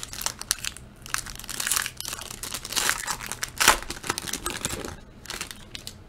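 Foil trading-card pack being torn open and crinkled by hand: a run of sharp crackles and rustles, the loudest about two-thirds of the way through.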